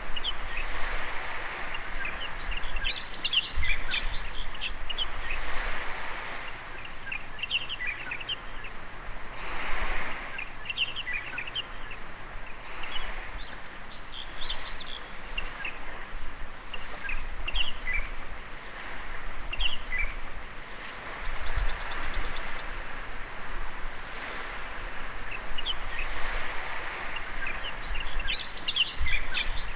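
Small birds chirping and twittering in scattered bursts, with one quick trill of rapid notes in the middle, over a steady swelling wash of small waves on a beach. Occasional low rumbles sit underneath.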